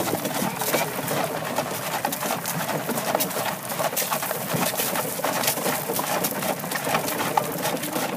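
Horse-drawn Amish buggy rolling along, its wheels and body giving a steady, rapid, irregular clatter and rattle.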